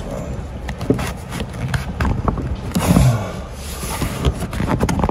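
Close handling noise as rubber vacuum hoses are worked back onto their engine fittings: scattered clicks and rubbing over a continuous low rumble.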